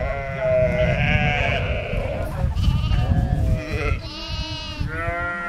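Lambs bleating repeatedly: a string of five or six high calls, one after another and some overlapping, over a low rumble.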